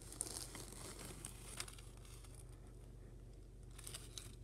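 Faint rustling with a few light clicks, from handling close to the microphone, over a low steady hum.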